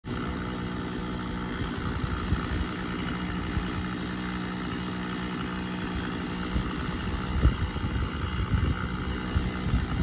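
An engine idling steadily. From about seven seconds in, wind buffets the microphone in irregular low gusts that grow louder than the engine.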